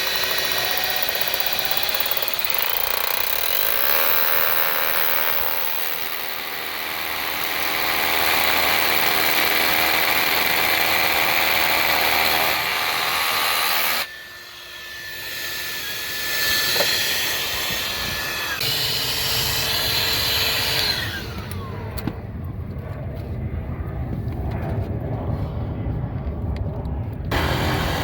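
Power drill running in long spells, with a steady whine for a few seconds in the middle and a fast rattling hammering from about three quarters of the way in.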